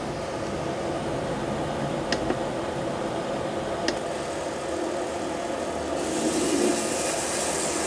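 Steady whir and hum of a Märklin HO model train running, with a few sharp clicks; a hiss grows louder about six seconds in.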